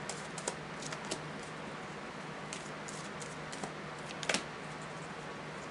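A deck of oracle cards being shuffled by hand: scattered light clicks and flicks of card edges, the sharpest about four seconds in.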